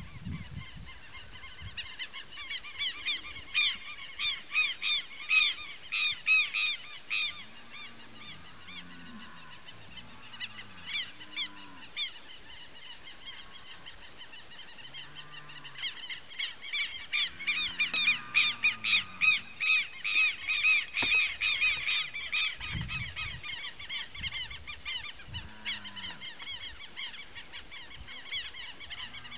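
Wild birds calling outdoors in two loud bouts of rapid, repeated high notes. Softer, lower calls come and go in between.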